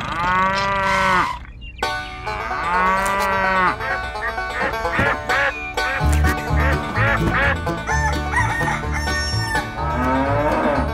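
Two drawn-out farm-animal calls, each over a second long and bending up then down in pitch. They are followed by upbeat plucked-string music, with a bass line coming in about six seconds in.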